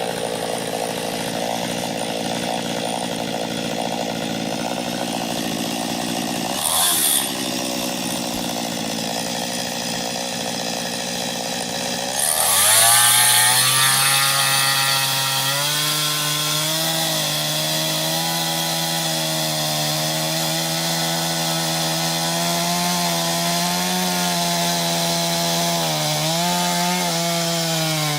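Small chainsaw with a 15-inch bar cutting into an ash trunk, plunging through the centre of the felling notch. About twelve seconds in, the engine note drops sharply and settles lower and wavering as the saw labours in the wood.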